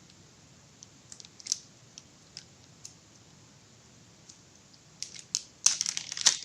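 Small plastic bag being opened and handled: scattered faint crinkles and ticks, then a denser, louder run of crinkling near the end.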